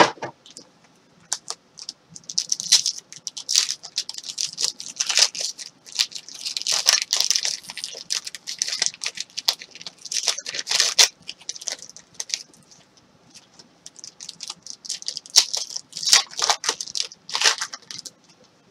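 Foil trading-card pack wrappers being torn open and crinkled: irregular bursts of tearing and rustling, with a lull in the middle before a last burst.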